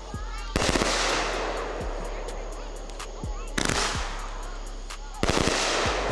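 Aerial fireworks bursting: three loud bangs, about half a second in, about three and a half seconds in and just past five seconds, each trailing off into a long fading crackle, with scattered small pops between.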